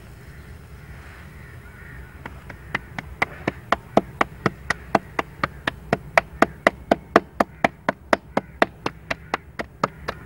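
Soft wheat-flour dough being slapped back and forth between the palms to flatten it into a roti by hand: a rapid run of sharp pats, about four a second, starting about two seconds in.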